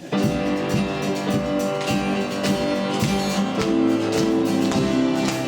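Church worship band starting a song, led by strummed guitar, kicking in suddenly at the start.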